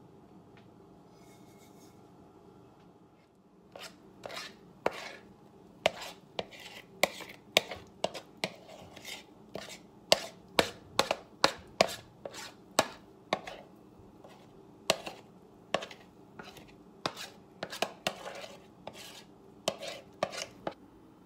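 A spoon knocking and scraping against a ceramic mixing bowl as thick banana bread batter is scraped out into a baking dish. The sharp knocks begin a few seconds in and come irregularly, about one or two a second.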